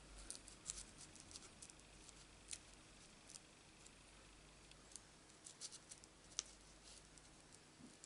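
Near silence with faint, scattered light ticks and taps: fingers pressing small paper pieces down onto card stock while handling a fine-tip glue bottle.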